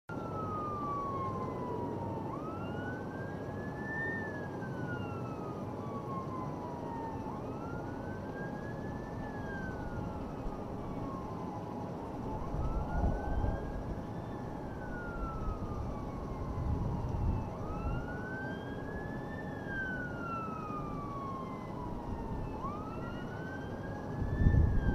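A siren wailing in slow rising and falling sweeps, about one every five seconds, over steady background noise. Low rumbles come through a few times, the loudest near the end.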